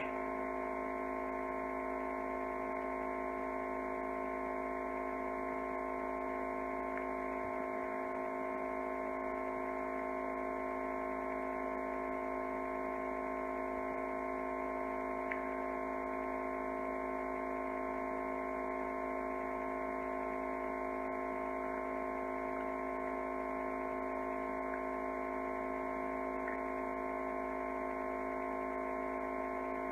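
Steady electrical hum: a constant drone of several fixed tones that does not change at all, with one faint click about halfway through.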